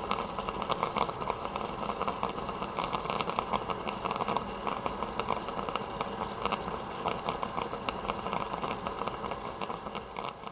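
Airhead floating aerator pump running, churning and splashing water with a steady fizz of many small bubble pops.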